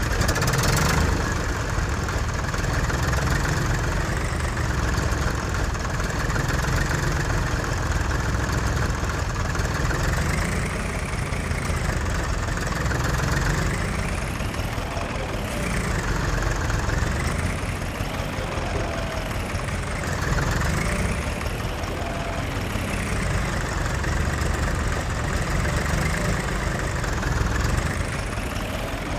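Diesel engines of heavy machinery running at a steady idle, with a whine that rises and falls every couple of seconds through the second half.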